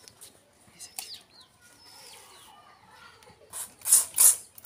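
Toy water spray gun squirting water at a foam board in several short, loud spurts, starting about three and a half seconds in. Birds chirp faintly before the spurts.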